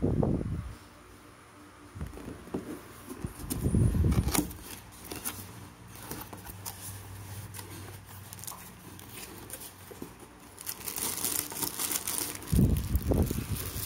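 Hands handling and opening a cardboard box, with a few dull thumps of the box and scattered scrapes of cardboard. Near the end comes the crinkling of the clear plastic bag wrapped around the mixer inside.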